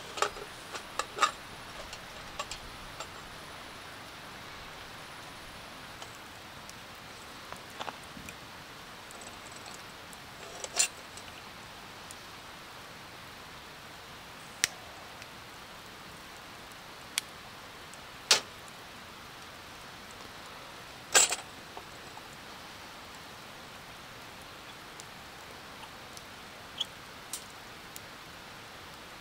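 A steady soft hiss with scattered sharp clicks and ticks, several close together at the start, then single ones every few seconds, the loudest a double click a little past the middle.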